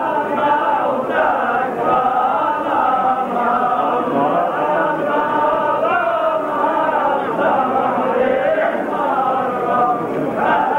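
A crowd of men chanting together in unison, a held, wavering melody carried by many voices without a break.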